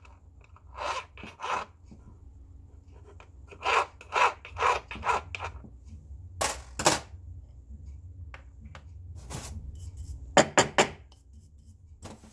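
Hand-filing a metal ring to smooth its surface: short rasping file strokes in uneven runs, a few louder strokes about halfway and again near the end. A steady low hum runs underneath.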